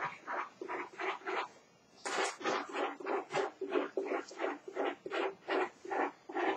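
A man laughing in a long run of short, evenly spaced bursts, about three or four a second.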